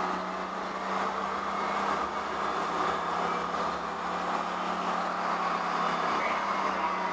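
Running noise of a Turin 7000-series bidirectional tram in motion, heard from inside its rear cab: a steady rush of wheels rolling on the rails over a constant low hum.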